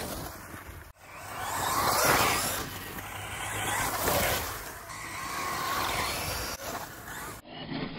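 Traxxas Stampede 4x4 VXL RC monster truck running over grass and dirt: electric motor whine and tyre noise rising and falling as it accelerates, loudest about two and four seconds in. The sound breaks off sharply about a second in and again near the end.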